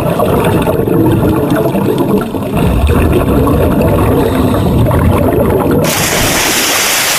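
Swimming water sound effect: continuous muffled churning and gurgling of water. About six seconds in it turns brighter and hissier.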